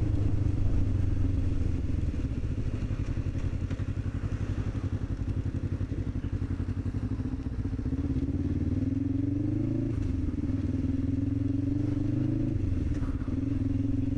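Motorcycle engine running on the move, with rush of wind. About halfway through it accelerates: the revs rise, fall at a gear change, then rise again before easing off near the end.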